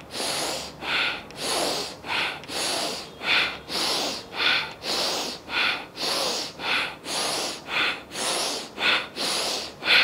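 Forceful breathing through the nose in slow Bhastrika pranayama (bellows breath): ten rounds of a hard inhale and a hard exhale, about one round a second, each breath a sharp hiss.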